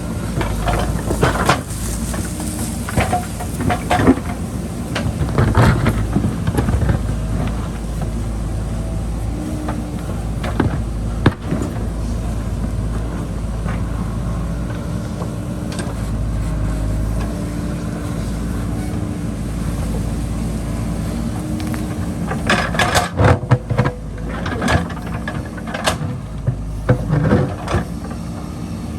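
JCB backhoe loader's diesel engine running steadily under load while digging into a hillside. The bucket gives sharp knocks and clanks against rock and soil in the first several seconds and again near the end.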